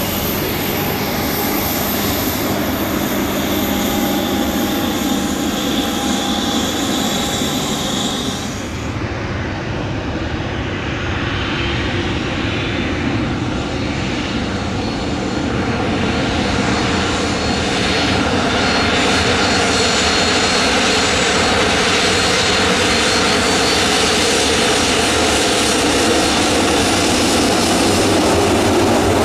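Boeing 737 twin jet engines running at low taxi thrust, a steady whine over a rumble. About nine seconds in the sound changes abruptly to a second 737, which grows louder as it taxis closer.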